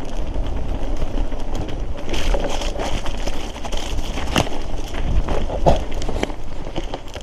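Mountain bike rolling downhill over a stony, muddy trail: tyres crunching over rock and gravel and the bike rattling over a steady low rumble, with a sharp knock about four seconds in and a smaller one about a second later.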